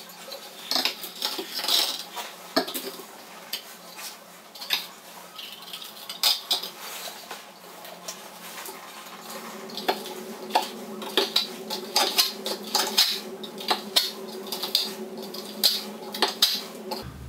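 Steel trowel scraping and clicking irregularly: liquid waterproofing membrane being smoothed onto a cement-board shower wall, with the trowel scraped against a bucket while it is reloaded.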